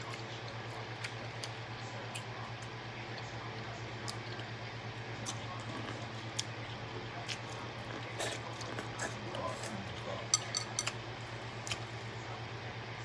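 Scattered small clicks and clinks of handling and eating seafood-boil food and utensils, with a cluster of sharper clicks about ten seconds in, over a steady low hum.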